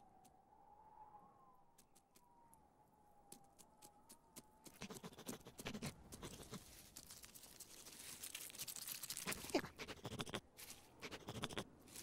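A faint, thin wavering whistle of wind for the first four seconds or so, then a busy run of crunching and scrabbling in snow as a cartoon squirrel scrambles through it, loudest about nine seconds in.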